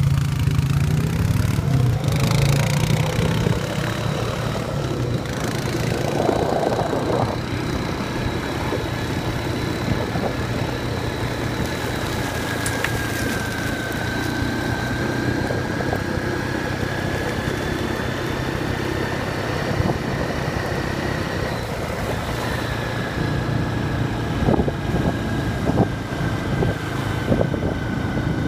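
ATV (four-wheeler) engine running steadily while riding along the beach, with a low hum and a faint whine that drifts a little in pitch.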